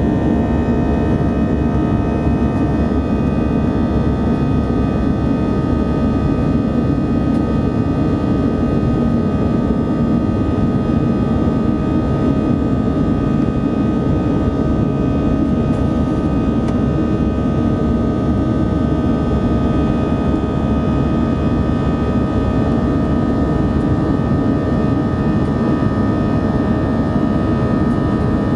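Steady cabin noise of an Airbus A319 in flight shortly after takeoff: jet engines and airflow running evenly, with a constant whine from the engines over a broad rumble.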